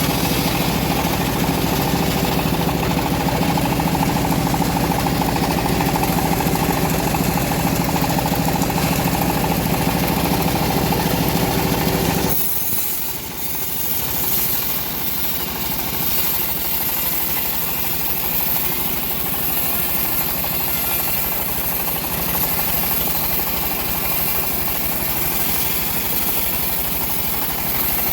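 Engine of a homemade bandsaw mill running steadily at a constant speed. About twelve seconds in the sound changes abruptly: the deep engine tone drops away and a hissier, slightly quieter running noise carries on.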